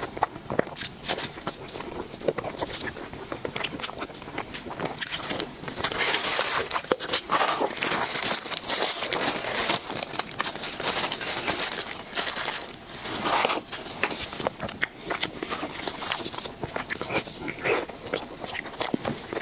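Close-miked eating of a dessert: a steady run of small clicks and crackles from biting and chewing, with a denser, louder crackly stretch for several seconds in the middle.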